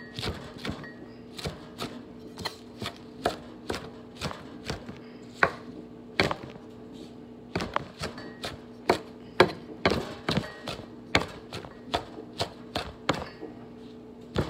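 Kitchen knife chopping fresh spinach and mint leaves on a wooden cutting board: an uneven run of sharp knocks of the blade on the board, about two or three a second, with a few short pauses.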